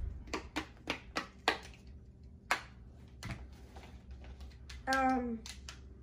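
Sharp, separate plastic clicks and pops from small fidget toys being pressed and twisted by hand, about half a dozen in the first two and a half seconds, then a brief child's vocal sound about five seconds in.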